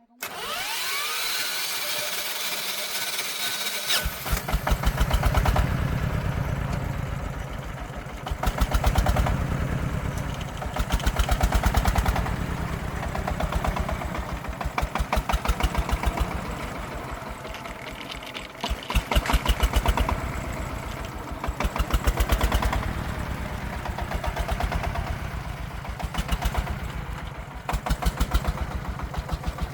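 Single-cylinder diesel engine of a Vietnamese công nông farm vehicle, chugging with evenly spaced firing beats from about four seconds in. Its speed rises and eases again every few seconds.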